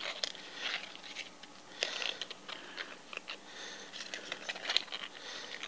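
Small irregular metallic clicks, scrapes and rustles as a fencing reel's coiled steel spring is wound by hand, clockwise, back into the spring-pack housing of an upright reel.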